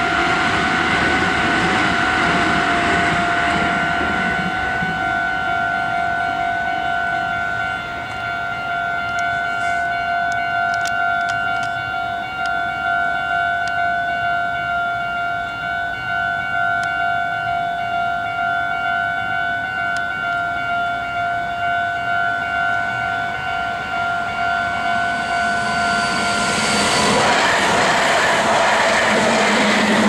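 Japanese railway level-crossing warning bell ringing steadily in a pulsing two-tone ding. About 27 seconds in the bell stops and the rising rumble of an approaching Meitetsu 3150 series plus 3500 series electric train takes over as it reaches the crossing.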